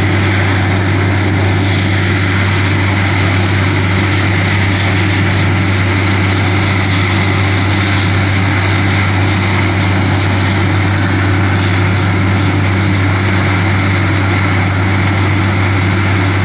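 Truck-mounted borewell drilling rig running steadily while drilling: a loud, constant deep hum under a broad rushing noise.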